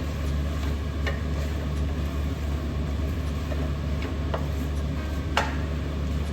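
Chicken frying in oil in a pan while being stirred: an even sizzle over a steady low hum, with a few sharp clicks of the spoon against the pan, the loudest about five seconds in.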